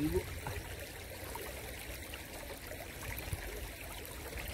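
Steady rush of flowing water, with a low rumble underneath.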